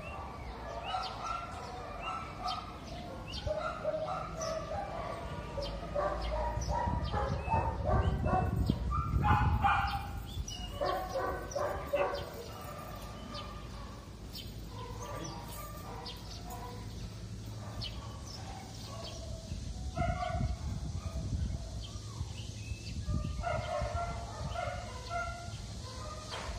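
Dogs barking repeatedly in short calls, with a louder low rumble about six to twelve seconds in.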